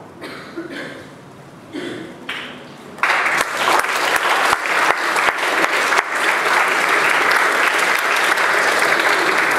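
Audience applauding, the clapping breaking out suddenly and loudly about three seconds in and carrying on steadily.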